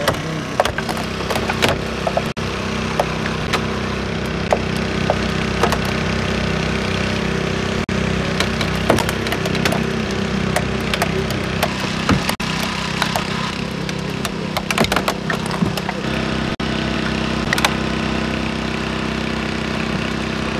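Portable generator engine running steadily to power hydraulic rescue cutters. Over it come repeated sharp cracks and snaps as the cutter blades bite through a car's B pillar.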